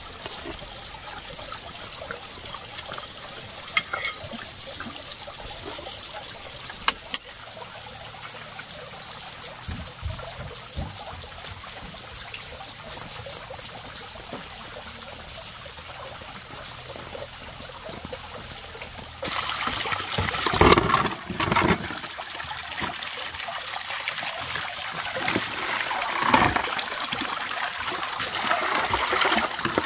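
Water poured from a plastic dipper splashing into a plastic basin of dishes as they are rinsed. It starts suddenly about two-thirds of the way through, with a couple of louder splashes. Before that there is only a low steady hiss with a few light clicks.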